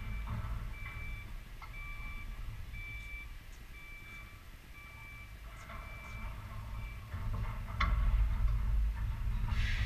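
A vehicle's reversing beeper sounding a steady high beep about once a second, over a low rumble that swells near the end. A few sharp knocks of tennis balls struck by racquets, the clearest about eight seconds in.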